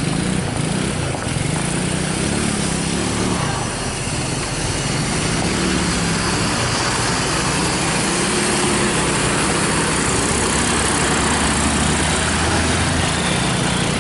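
A bus engine running close by with steady road noise, getting a little louder after the first few seconds.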